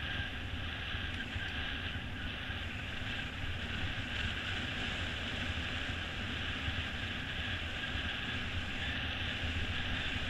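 Mountain bike riding fast on asphalt: a steady rush of wind on the microphone over the rolling hum of the tyres on the road surface.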